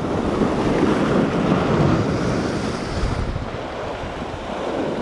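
Surf breaking and washing over shoreline rocks, with wind buffeting the microphone.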